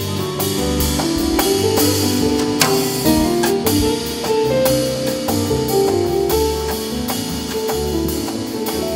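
Jazz trio playing: an upright double bass plucked in a moving low line, a drum kit keeping time with regular cymbal strokes, and keyboard chords.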